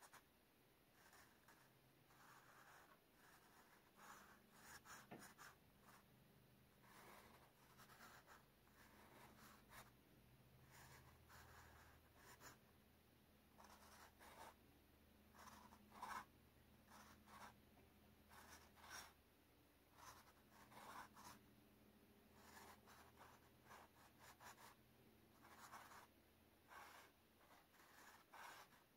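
Faint scratching of a marker colouring in on a card panel, in many short, irregular strokes.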